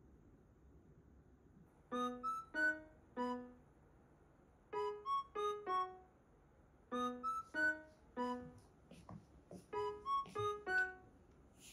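Background music: a light tune of short, quickly fading notes in phrases of four, the phrase repeating about every two and a half seconds from about two seconds in.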